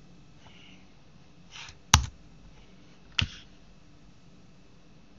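Computer keyboard keys pressed: a soft tap or two, then two sharp key clicks about a second apart, answering the install prompt with 'y' and Enter.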